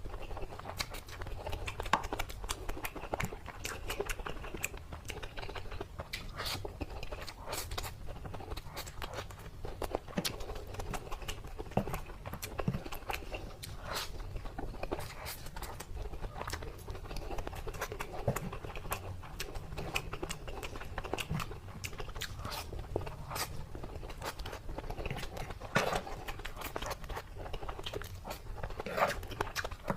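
A person chewing and biting crispy food close to the microphone: many irregular sharp crunches and clicks.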